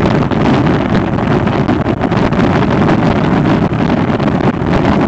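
Wind buffeting the microphone and road noise from a Honda ST1300 Pan European motorcycle cruising at steady speed, with a faint steady hum running underneath.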